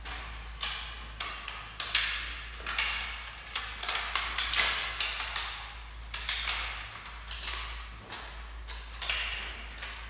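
Flat mop being pushed in quick back-and-forth strokes over a glossy tiled floor: a run of irregular swishes and light knocks, one to two a second, over a steady low hum.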